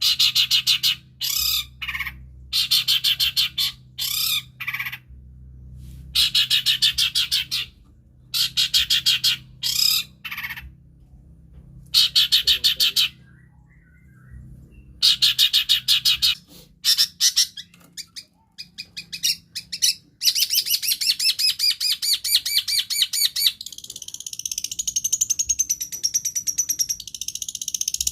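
Long-tailed shrike (cendet) singing in rapid, harsh chattering phrases of about a second each, with short pauses between them. From about two-thirds of the way in, the chatter runs on without a break and carries a wavering high whistle. This is the kind of shrike song used as a lure to get other cage birds singing.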